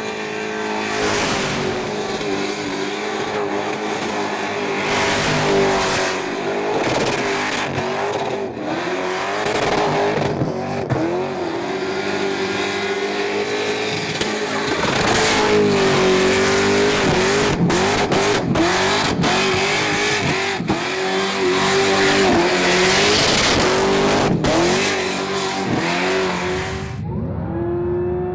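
Supercharged GM LS V8 in a Holden Commodore burnout car, held at high revs with the throttle pumped up and down while the rear tyres spin. Near the end it gives way to another V8 car accelerating away, its pitch climbing steadily.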